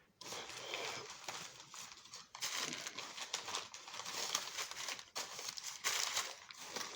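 Packing material in a cardboard shipping box rustling and crinkling as it is handled and pulled out during unpacking, an irregular continuous rustle starting about a quarter second in.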